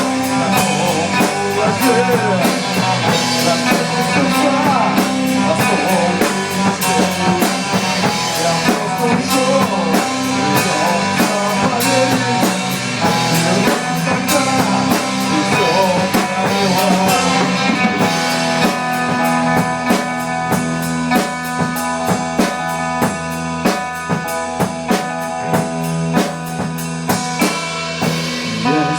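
Rock music with drum kit and guitar and a steady beat; from about eighteen seconds in it thins to sustained guitar chords and separate drum hits.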